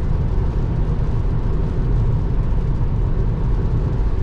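Steady road and tyre noise heard inside a Tesla Model 3's cabin, cruising at about 75 mph on a rain-wet highway.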